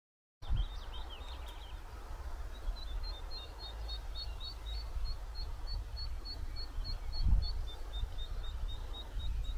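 A small songbird repeating short high chirps, about three a second, alternating between two close pitches, over a low steady outdoor rumble. A few quicker bird calls come near the start.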